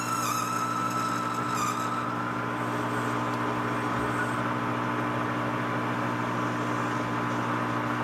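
Metal lathe running as it machines the end of an aluminum piston blank: a steady motor and gear hum with a constant whine. A high squealing tone from the cut fades out about two seconds in.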